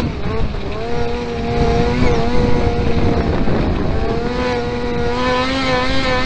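Kart-cross motorcycle-type engine heard onboard, held at high revs with a steady note that breaks off briefly a few times, over a rough low rumble.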